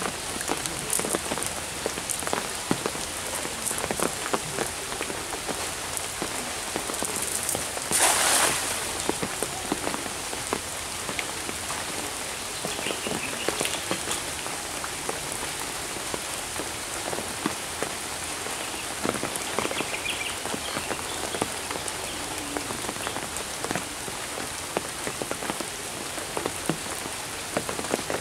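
Steady patter of rain. About eight seconds in, a brief loud splash as the cast net lands on the pond.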